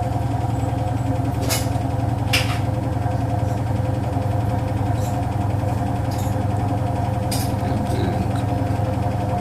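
Siemens iQ700 front-loading washing machine running on spin: a steady mechanical hum with a few sharp knocks. The noise comes from the drum on spin, the fault for which the drum is replaced.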